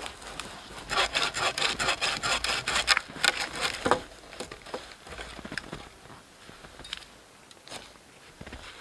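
Bow saw cutting a log on a sawbuck in quick back-and-forth strokes for about three seconds, then stopping. A few faint knocks and rustles follow.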